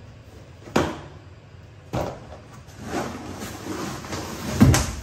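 A large cardboard bicycle box being opened and handled: three knocks and thumps of the box and its flaps, with rustling of packing between them, the loudest thump near the end.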